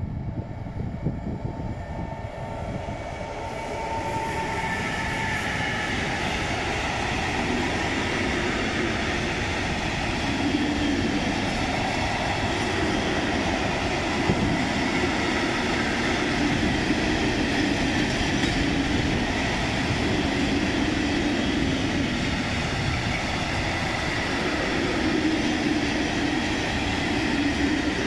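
Freight train of Talbot self-discharging hopper wagons rolling past, a steady rumble of wheels on rail that grows louder about four seconds in and then holds as the wagons go by.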